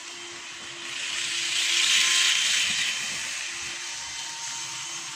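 Model train running past on the layout: the motor's whirr and the wheels on the track swell up about a second in, peak, then fade away over a steady background hum.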